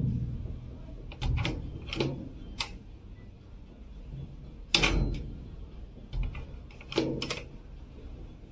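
Small green-painted metal hatch door with a rim lock clanking shut and being opened again several times, with latch clicks; the loudest bang comes about five seconds in.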